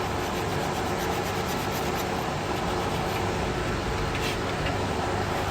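Abrasive cloth rubbing on copper refrigeration pipe, cleaning it for brazing, over a steady mechanical hum.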